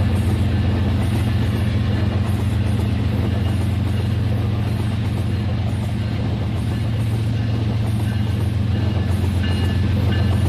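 Rail King toy train's small electric motor running steadily along its plastic track, a constant low hum with faint regular ticking of wheels over the track joints.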